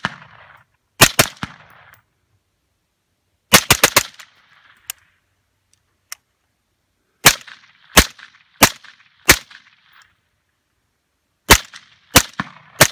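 Suppressed 5.56 mm AR-type carbine with a Claymore 5.56 suppressor, fired in short strings: a pair, a quick run of about four, four evenly paced shots about two-thirds of a second apart, then three more near the end. Each shot is a sharp crack with a brief echo trailing off.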